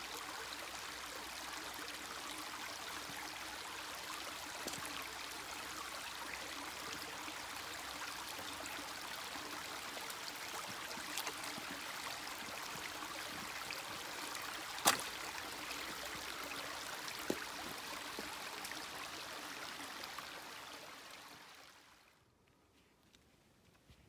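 Swollen forest creek rushing over stones, a steady water noise after heavy rain, with a few sharp knocks, the loudest about two-thirds of the way through. Near the end the water sound fades away to near silence.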